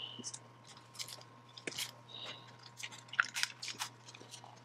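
Lenovo Yoga 920 laptop battery pack being worked loose from the laptop's case by hand: scattered small clicks and crackles of plastic and fingers on the battery and chassis.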